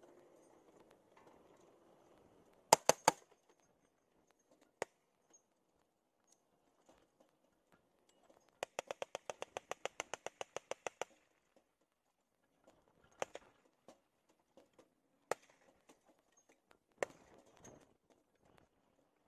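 M2 .50-calibre heavy machine gun firing. It fires a quick three-round burst, the loudest part, about three seconds in, then a single shot. A longer even burst of about twenty rounds at roughly nine a second comes around the middle, followed by three single shots spaced a couple of seconds apart.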